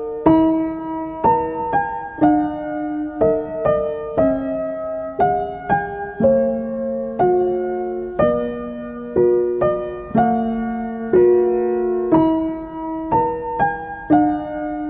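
Background music: a slow solo piano piece, notes and chords struck about once a second and left to ring and fade.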